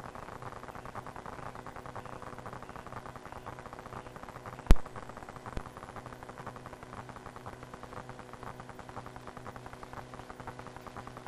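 Steady electrical hum and hiss on a police cruiser's in-car video recorder audio, with a sharp click about halfway through and a fainter click about a second later.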